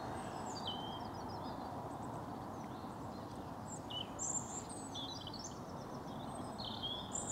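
Birdsong: several small birds chirping and whistling in short phrases, over a steady low rumble of distant road traffic.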